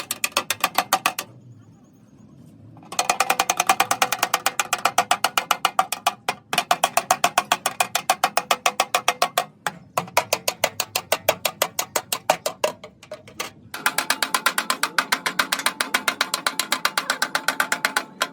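Rapid hammer blows on car body sheet metal, about seven a second, each with a short metallic ring. They come in runs broken by brief pauses, typical of panel beating out front-end crash damage.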